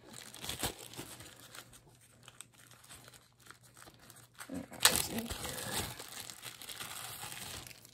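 A plastic zip-top bag crinkling and rustling as it is handled and opened, in irregular bursts, with the loudest rustle about five seconds in.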